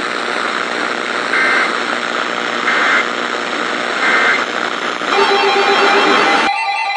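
Steady radio static hiss with three short data bursts about 1.4 seconds apart: the Emergency Alert System end-of-message code that closes a National Weather Service alert. The hiss changes about five seconds in and cuts off suddenly near the end, giving way to steady tones.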